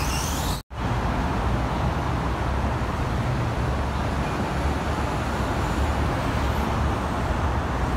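Steady low rumble of road traffic, broken by a momentary dropout to silence less than a second in.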